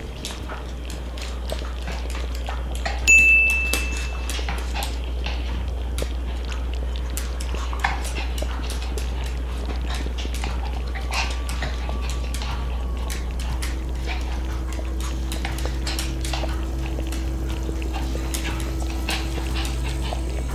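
Pomeranian rubbing and scrabbling against a cabinet corner on a tiled floor: scattered light clicks and rustles of claws and fur over a steady low hum. One short high-pitched tone comes about three seconds in.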